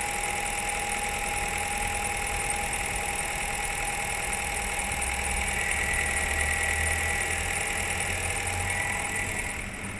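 Car engine idling steadily, with a constant high whine over the running engine.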